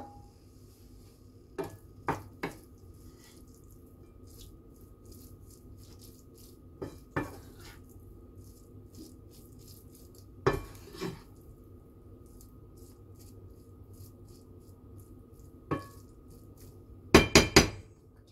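Wooden spatula knocking against a wok while stir-fried noodles are tossed: separate sharp knocks every few seconds, then a quick run of four louder knocks near the end, over a faint steady hum.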